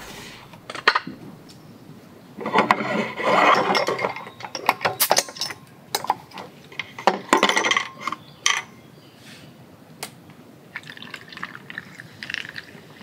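Shochu poured from a bottle onto a glass heaped with ice, the ice crackling and clinking against the glass, with sharp clinks of glass bottles being handled. Near the end a bottle of Hoppy starts pouring into the glass, fizzing over the ice.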